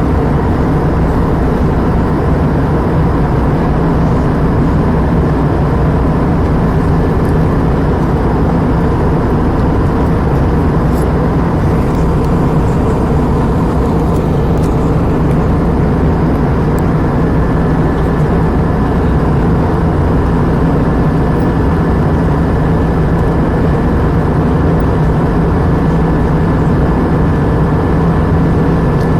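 Steady cabin noise of an Airbus A320 in flight: a constant deep rush of airflow and engine drone, with a faint thin whine on top.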